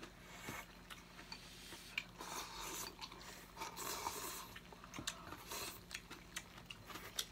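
People slurping instant noodles and broth in several hissy draws of about a second each, with chewing and small clicks of chopsticks against bowls.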